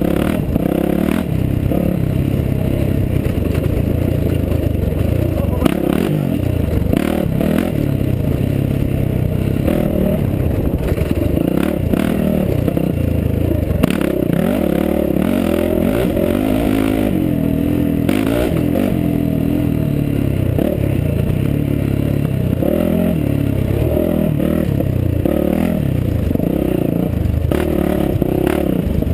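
Enduro motorcycle engine, heard from on board, revving up and down continuously as the bike is ridden over a rough rocky dirt trail, with frequent knocks and rattles from the bike hitting rocks and bumps.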